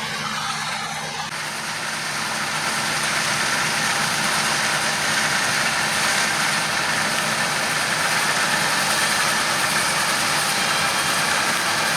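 Diesel engine of heavy harvest machinery running steadily under a dense mechanical rush. It grows louder about two seconds in and then holds level.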